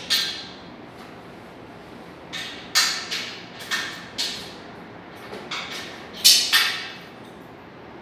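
Sharp knocks on hard material as sofa parts are knocked together during assembly. There are about eight of them, unevenly spaced, and the loudest two come close together near the end.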